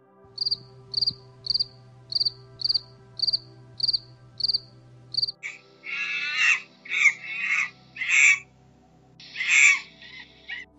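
Grasshopper chirping: about ten short, evenly spaced chirps, roughly two a second. From about five and a half seconds in, a macaque monkey calls, four calls close together and one more after a short pause.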